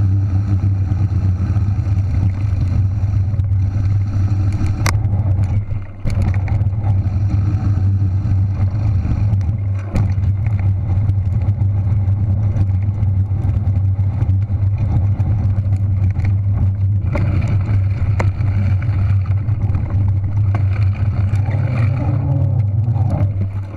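Steady, loud low rumble of wind and tyre noise as a fat bike is ridden downhill, picked up by a handlebar-mounted camera, with a few sharp knocks as the bike jolts over the ground.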